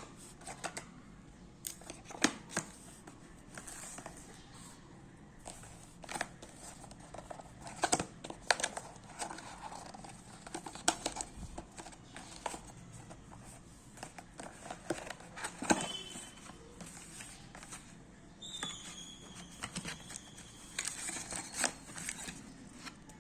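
Handling and opening of a smartphone's packaging: scattered sharp clicks, taps and crinkling of plastic and cardboard. A short high-pitched tone sounds briefly near the end.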